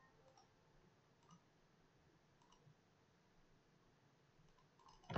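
Near silence: faint room tone with a few soft computer mouse clicks.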